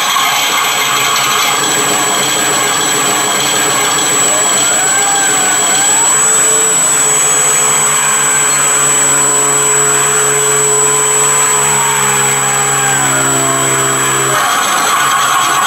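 Small electric motor and propeller of an RC warbird spinning, with a sound module playing a simulated piston-engine drone through a small loudspeaker, its pitch gliding up and down. The engine sound drops out about fourteen seconds in while the whirring continues. The simulated engine does not match the propeller's RPM unless the throttle is tweaked.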